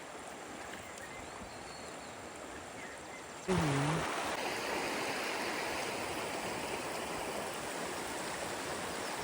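River water rushing over stones, a steady rush that gets louder from about three and a half seconds in, where a short voice is heard briefly.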